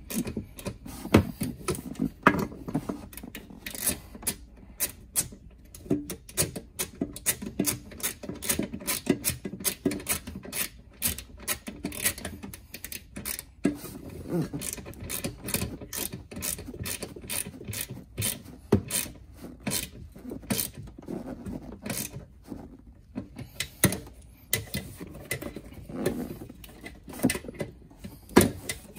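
Hand socket ratchet clicking in quick runs, with short pauses, as the mounting bolts of a golf cart solenoid are tightened.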